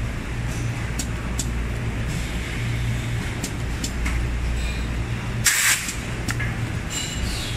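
Automatic soft-PVC keychain dispensing machine running: a steady low hum with scattered sharp clicks, and a short hiss of released air about five and a half seconds in.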